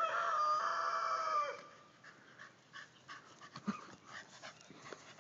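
A dog's high, drawn-out whine or howl lasting about a second and a half, steady in pitch and dipping as it ends. After it come only faint short sounds.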